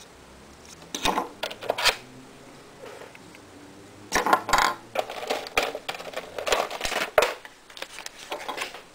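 Small hard plastic pieces clicking and rattling as they are handled: the Powergorilla's charger adapter tips in their clear plastic case. There is a short burst about a second in, then a longer run of clatter from about four seconds in.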